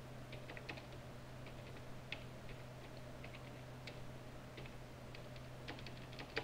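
Faint, irregular keystrokes on a computer keyboard as a short message is typed, with a quicker run of taps near the end.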